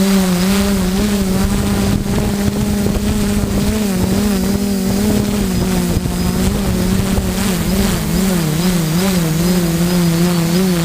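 A steady motor drone, its pitch wavering slightly up and down, more so toward the end.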